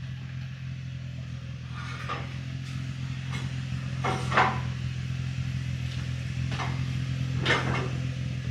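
Nissan 350Z's 3.5-litre V6 idling steadily through a freshly fitted Z1 Motorsports Touring cat-back exhaust, a deep, calm drone.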